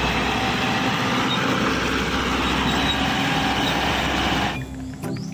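Heavy truck engine running steadily with a low hum underneath, then cutting off abruptly about four and a half seconds in.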